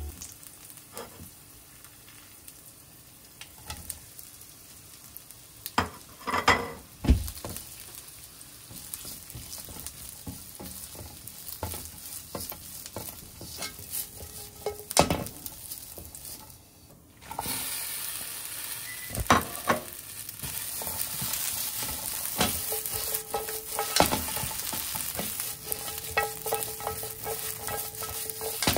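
Chikuwa fish cake and okra stir-frying in oil in a nonstick frying pan: a steady sizzle, with the spatula knocking and scraping against the pan as the food is tossed. After a short lull about two-thirds of the way through, the sizzle comes back louder and hissier.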